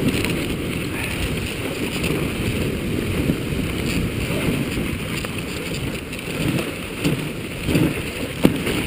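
Wooden dog sled running fast over a bumpy snow trail: steady runner noise on the snow mixed with wind on the microphone, and one sharp knock near the end.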